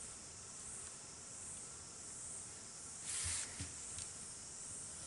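Faint steady hiss, then a little past three seconds in a brief rustle of paper and a couple of soft knocks as a long plastic ruler is laid across the drawing paper.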